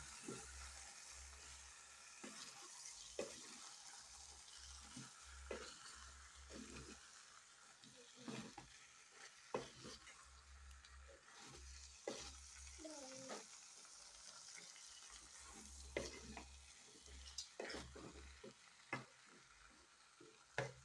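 Wooden spoon stirring githeri (maize, peas and potato chunks) in an aluminium pot, with scattered knocks and scrapes against the pot over a faint sizzle.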